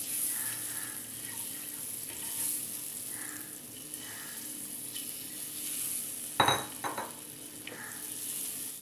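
Boiled eggs sizzling gently in hot coconut oil with turmeric and chili powder in a non-stick pan, a steady crackling hiss. Near the end a couple of sharp knocks come from the pan.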